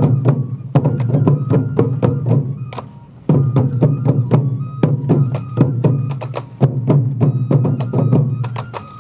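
Sansa Odori festival music: taiko drums beaten in fast, dense strokes with sharp rim-like clicks and a few steady pitched notes above them. The drumming breaks off briefly about three seconds in and again near the end, then starts again.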